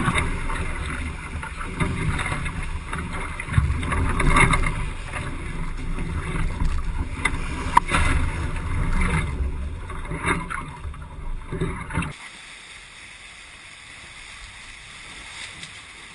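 Wind buffeting the microphone and water rushing and spraying around a Hobie 16 catamaran's hulls at speed, with irregular surges. About twelve seconds in it cuts abruptly to a much quieter, even wind and water hiss.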